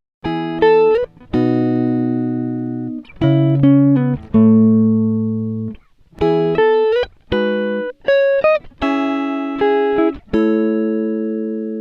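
Background music: a solo guitar playing single notes and chords, each ringing and fading, with a few slides between notes.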